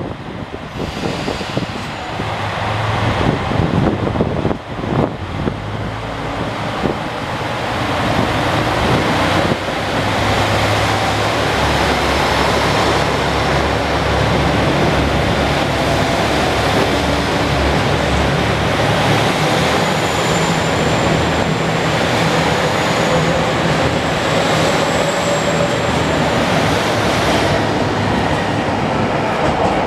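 A HOT7000-series diesel multiple unit pulling out and passing close by. Its diesel engines run steadily under power, with a few knocks from the wheels in the first several seconds and a thin high whine about two-thirds of the way through.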